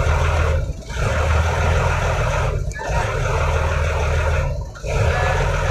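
An engine running under a loud rushing noise of wind or water, dropping out briefly three times, about every two seconds.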